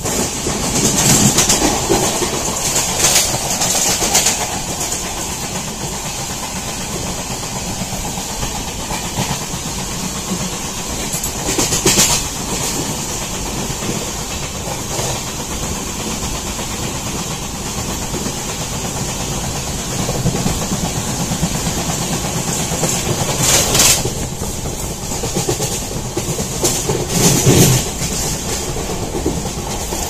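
Passenger train running, heard from its open doorway: a steady rumble of wheels on the track, with louder clacks at irregular moments.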